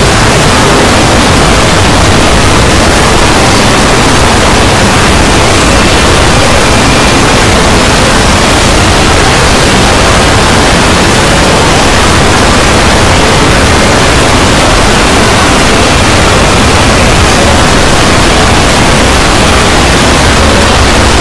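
A loud, unbroken wall of noise like static: the soundtracks of dozens of videos layered on top of one another until they blur into one hiss with no sound standing out.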